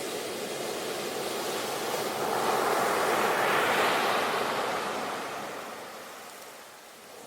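Sea waves breaking on a shore: one wave swells in about two seconds in, peaks, and washes back out, fading near the end.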